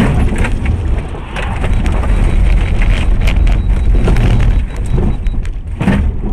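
Car driving on a wet highway, heard from inside the cabin: a steady low road rumble with many irregular ticks and knocks over it.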